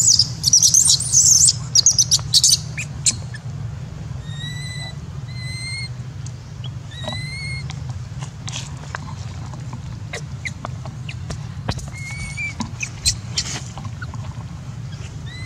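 Baby macaque screaming in shrill, high-pitched squeals for the first couple of seconds, then going quiet apart from a few short, thin, whistle-like calls.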